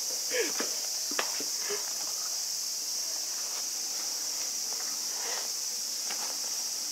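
Steady, high-pitched insect chorus, with scattered light clicks and taps over it.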